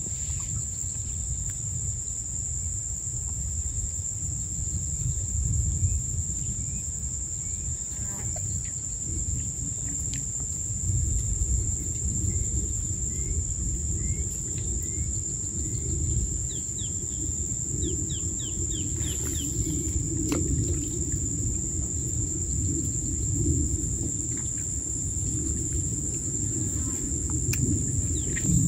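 Insects droning at one steady high pitch, with a run of short bird chirps about halfway through, over a low steady rumble.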